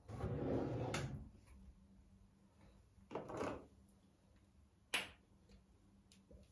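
Household handling sounds: a short sliding scrape that ends in a sharp click, then a brief swish and another sharp click, like a drawer or cabinet being worked.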